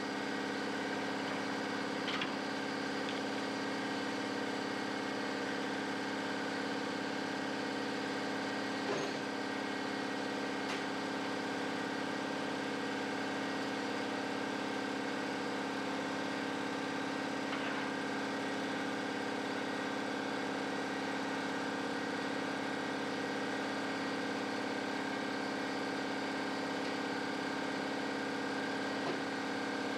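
Steady mechanical hum of a running motor or engine, unchanging throughout, with a few faint knocks.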